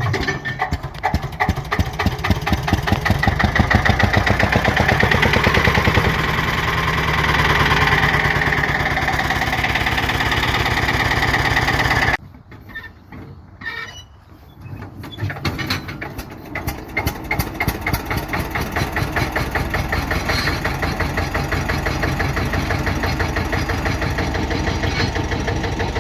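Eicher single-cylinder diesel engine starting: the beats quicken and grow louder over the first few seconds, then settle into a steady run. About halfway through the sound stops suddenly. An engine then fires again with slow separate beats that quicken into a steady, even single-cylinder run.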